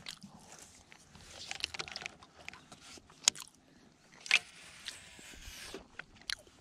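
Handling noise from a fishing rod and baitcasting reel being lifted and handled close to the microphone: scattered clicks, knocks and rustles, with sharp clicks about three seconds in, just over four seconds in, and near the end.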